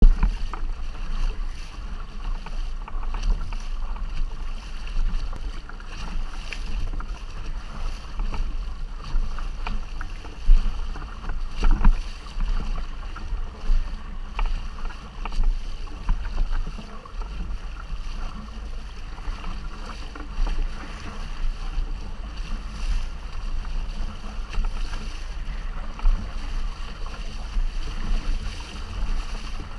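Water rushing and splashing past the hull and rudder of an inflatable sailboat under sail, with wind buffeting the microphone as a fluctuating low rumble. There are two louder knocks about a third of the way through.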